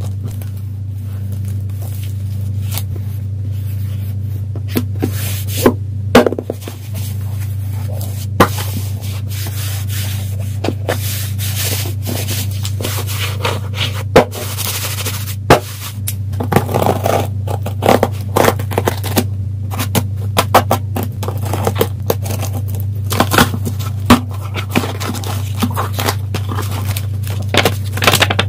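Packaging and goods being handled by hand during an unboxing: irregular clicks, knocks and rustling handling noise over a steady low hum.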